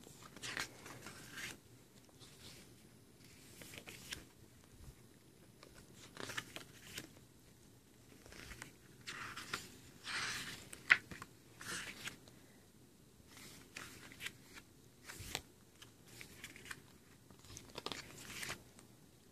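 Pages of a glossy photo book being turned by hand: a string of short papery swishes and rustles at irregular intervals, with one sharp snap about eleven seconds in.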